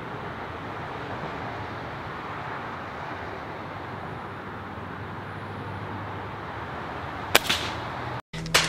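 Steady background hiss, then about seven seconds in a single sharp crack of an air rifle shot. Right at the end the sound cuts to a few sharp clicks.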